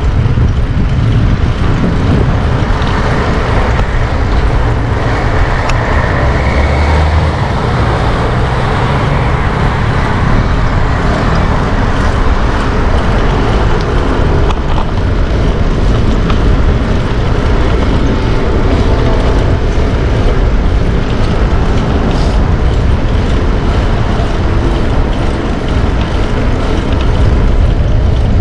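Busy city street traffic heard from a moving bicycle: passing cars and other motor vehicles over a steady low rumble.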